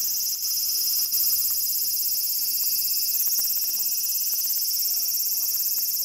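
Japanese cicada singing at close range: a loud, steady, high-pitched buzzing drone with a fine, rapid pulse.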